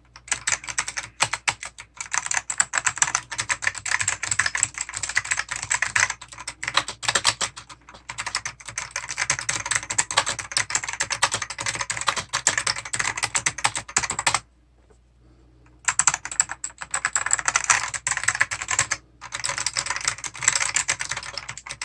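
Rapid typing on a 1995 IBM keyboard with original Alps white switches: dense runs of clicky keystrokes, broken by a pause of about a second and a half past the middle and a brief gap near the end.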